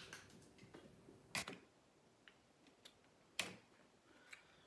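A few short, sharp clicks and snaps of a boiled crawfish shell being cracked and peeled by hand, two of them louder, about a second and a half in and near three and a half seconds, in an otherwise quiet room.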